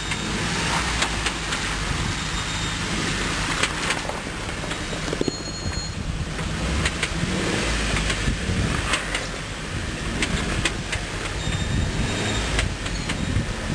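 Jeep Wrangler Unlimited Rubicon's 3.8-litre V6 running at low revs with a steady low rumble as the Jeep crawls over rocks through a shallow creek, with scattered clicks and knocks from the tyres and rocks.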